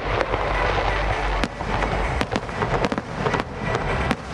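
Fireworks display: many sharp cracks and pops over continuous dense crackling and a low rumble.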